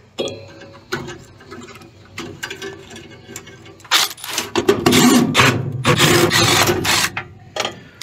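Metal parts and hand tools being worked inside a gas furnace cabinet: scattered clicks and knocks, then a louder, busy stretch of scraping and rapid clicking from about four seconds in until near the end.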